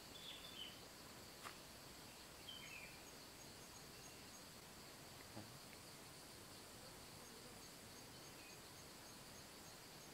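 Near silence: faint outdoor ambience of insects droning steadily, with a few brief bird chirps in the first few seconds and a soft click or two.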